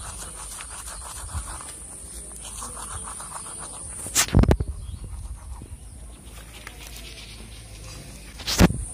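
Toothbrush scrubbing teeth, a fast rhythmic scratching, with two loud thumps at about four and eight and a half seconds in and a steady high whine underneath.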